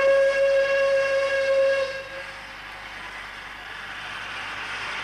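Steam locomotive whistle blowing one long, steady blast that fades out about two seconds in. A steady hiss of escaping steam follows.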